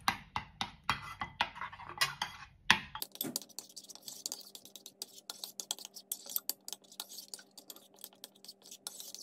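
Metal spoon stirring condensed milk into mango puree in a ceramic bowl, clinking and scraping against the bowl in quick, regular strokes. About three seconds in, the strokes turn lighter and quicker, over a faint steady hum.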